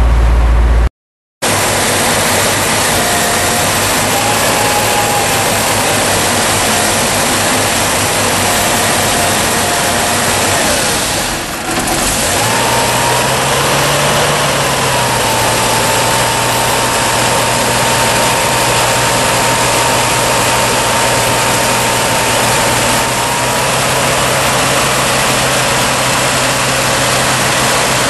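Dodge Power Wagon's 360 cubic-inch V8 idling on wood gas from a gasifier, with a steady hiss over the engine note. The engine's pitch rises briefly about halfway through, then settles at a steady idle.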